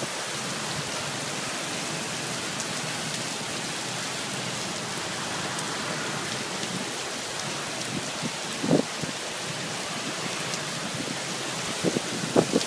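Heavy downpour on pavement: a steady, dense hiss of rain, with a few brief low thumps about two-thirds of the way through and near the end.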